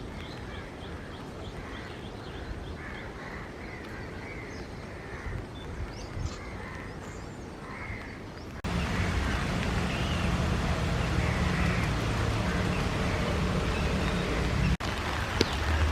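Birds calling in short repeated notes. About halfway through, the sound cuts abruptly to a louder, steady noise with a low rumble.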